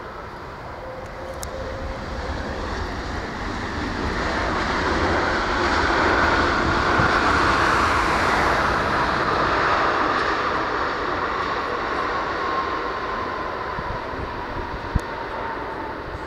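Airbus A330-300's engines roaring during the landing roll, the sound swelling over several seconds and then easing as reverse thrust slows the jet, with a whine falling in pitch as the engines spool down. One sharp click near the end.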